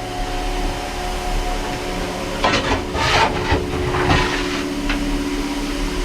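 Ivatt 46447 steam locomotive standing with a steady hiss and hum, with a run of sharp knocks and clanks from about two and a half to four seconds in.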